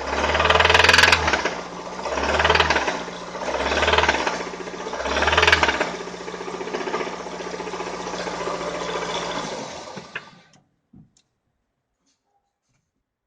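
2003 Toyota Avensis 1.8-litre four-cylinder engine with a knocking and rattling noise, revved in four short bursts, then running steadily before it is switched off about ten seconds in.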